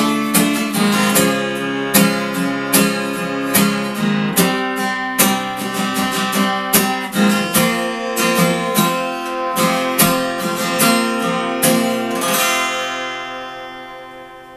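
Solo acoustic guitar playing chords with regular strokes, then a final chord about twelve seconds in, left to ring and fade out: the end of the piece.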